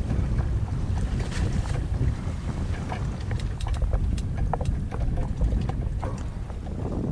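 Wind buffeting the microphone on a small boat at sea, a steady low rumble, with scattered short ticks and small splashes of water over it.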